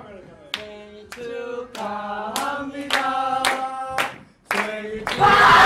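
A group of young men singing a birthday song together in held notes, with hand clapping. Near the end it breaks into loud group yelling.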